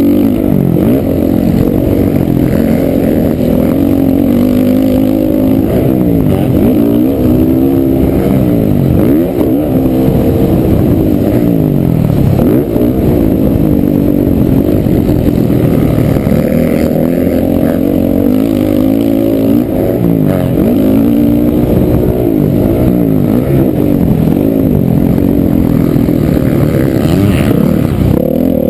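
Honda CRF450R's single-cylinder four-stroke engine revving hard, its pitch repeatedly rising and falling as the rider accelerates, shifts and rolls off the throttle, heard from on the bike.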